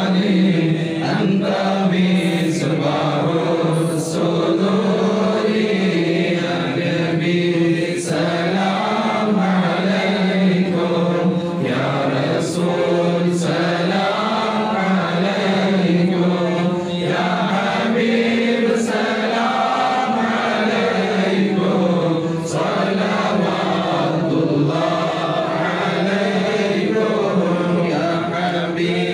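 A group of men chanting an Islamic devotional song in unison, led through microphones, in a slow, continuous, wavering melody.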